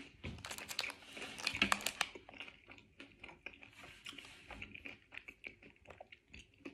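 Close chewing of a white chocolate protein bar with crisp rice pieces inside: a dense run of crunching crackles for the first two seconds, then slower, softer chewing.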